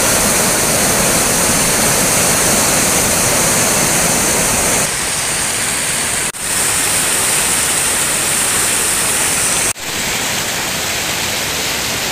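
Steady, loud rush of muddy floodwater pouring over a submerged bed dam. The sound changes about five seconds in and drops out for an instant twice, around six and ten seconds in.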